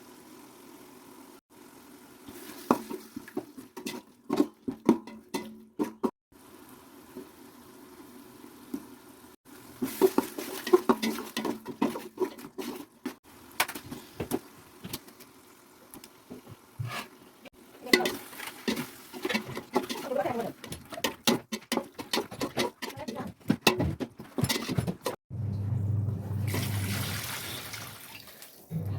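Kitchen cooking sounds: liquid being poured and utensils knocking and clinking against a pot in several clusters. Near the end comes a steady rushing noise with a low hum for about three seconds.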